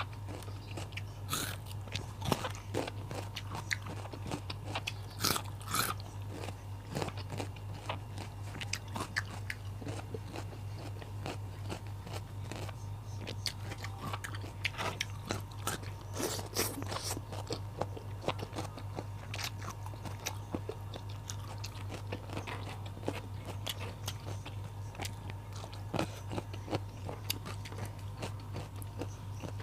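A person biting and chewing crunchy raw vegetables, close to the microphone: a steady run of crisp crunches and wet chewing, with a steady low hum underneath.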